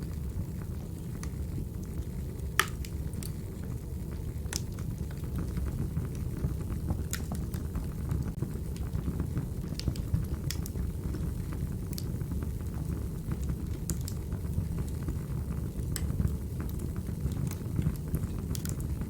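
Crackling wood fire from a fireplace ambience recording: a steady low rumble of flames, with irregular sharp pops and crackles every second or two.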